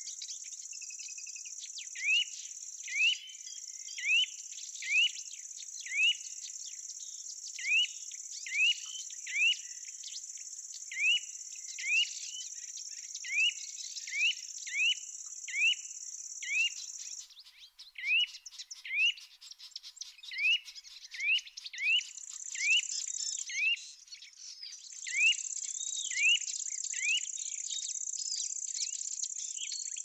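A steady, high insect trill runs under a bird calling over and over with a short rising chirp about once a second. The trill drops out for a few seconds past the middle and returns in stretches near the end.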